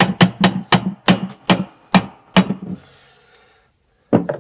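Wooden mallet striking a metal bar key set across a boat's freshwater tank inspection cap, about four ringing blows a second, loosening the stuck threaded cap. The blows slow and stop a little under three seconds in, and one sharp knock follows near the end.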